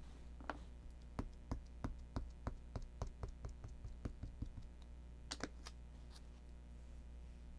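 A rubber stamp tapped over and over onto paper and ink pad to build up a repeated stamped pattern: a run of quick light taps, about three or four a second, stopping after a few seconds, with two more taps about a second later.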